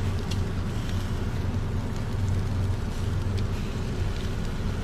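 Charcoal barbecue grill with pork skewers over hot coals: a steady rushing noise under a constant low hum, with a few faint crackles.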